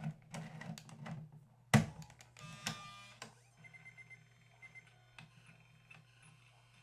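Floppy-style SuperDisk cartridge being pushed into a Panasonic SuperDisk 240 USB drive: sliding and clicking as it goes in, a sharp click as it seats a little under two seconds in, then a short whine as the drive spins the disk up, followed by faint ticks.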